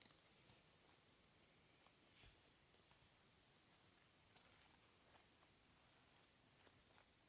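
A small songbird singing a high, fast run of about half a dozen repeated wavy notes lasting a second and a half, followed by a fainter, lower run of notes.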